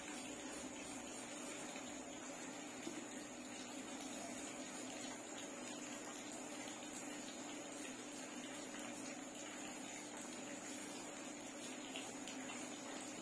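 Steady background hiss with a faint constant hum underneath, unchanging throughout, with no distinct sounds standing out.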